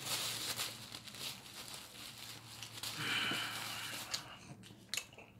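Paper rustling and crinkling close to the microphone, with a brief higher-pitched sound lasting about a second, about three seconds in.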